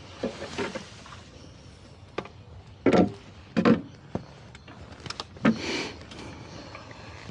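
Rowing boat knocking and clunking: several irregular hollow clunks, the loudest about three seconds in and again just after.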